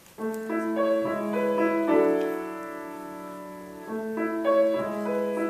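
Piano playing the introduction to a song: a pattern of single notes stepping upward starts just after the beginning and leads into a chord that is held and slowly fades. The note pattern starts again about four seconds in.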